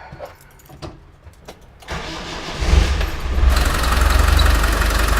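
1996 Land Rover Defender's 300Tdi 2.5-litre four-cylinder turbodiesel is cranked by the starter about two seconds in. It catches within about a second and a half and settles into a steady idle. It runs with a noisy, squeaky sound from the engine bay, which the owner thinks is a loose roller bearing in the alternator.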